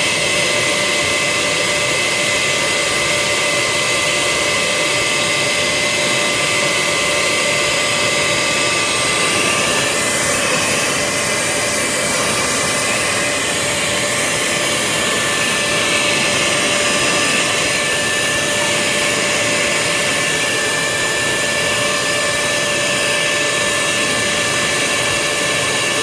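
Ozito wet and dry vacuum cleaner running steadily while its floor nozzle is pushed over carpet: a loud, even rush of air with a steady motor whine in it.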